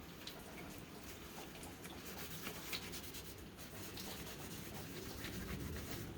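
Faint rubbing and scattered light clicks of oil-wet cut rock slabs being handled by hand.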